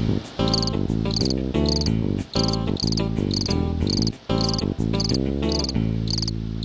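Background music of changing chords that settles on a long held chord near the end, mixed with a cricket chirping in a steady rhythm about twice a second.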